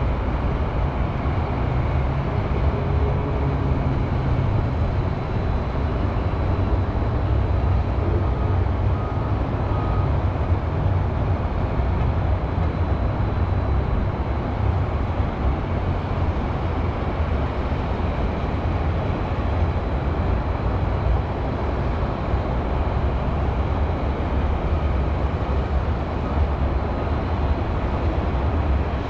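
Steady low rumble of city highway traffic, an even, continuous hum with no single vehicle or event standing out.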